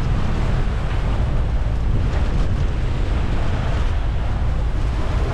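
Steady wind buffeting the microphone, with sea water washing along the hull of a sailboat under way.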